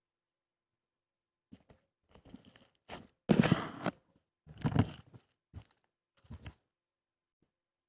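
A series of short crunching noises with silent gaps between them, starting about a second and a half in; the loudest comes about halfway through.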